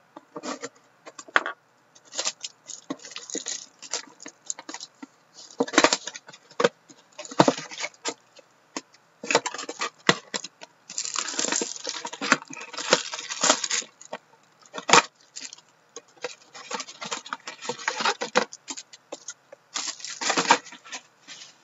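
Foil trading-card packs and box wrapping crinkling and rustling as a box of Upper Deck Series One hockey cards is opened and its packs are handled and stacked, in irregular bursts with sharp clicks, thickest around the middle.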